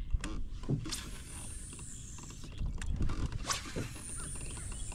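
Fishing reel and tackle handled in a kayak: scattered sharp clicks and knocks, with a faint high whir of the reel twice.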